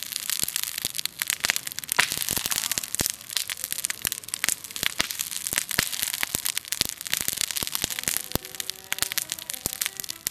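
Wood campfire crackling and popping: a dense, irregular stream of sharp snaps over a steady hiss.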